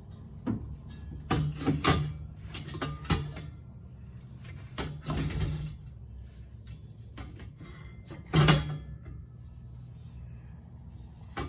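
Exhaust pipe sections being handled and fitted under the car: irregular metal knocks and scrapes, loudest about eight and a half seconds in, over a steady low hum.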